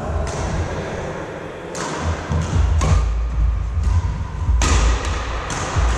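Badminton rally on a wooden court: rackets striking the shuttlecock with several sharp cracks, roughly a second apart. Heavy thudding of players' feet on the floor sets in from about two seconds in.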